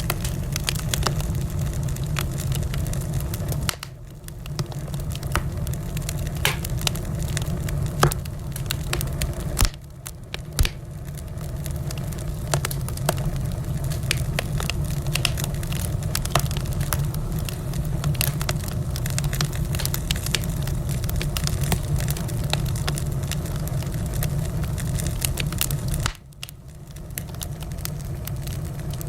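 Wood fire burning with a steady low rumble and many sharp crackles and pops. The fire's rumble drops briefly three times, about 4, 10 and 26 seconds in.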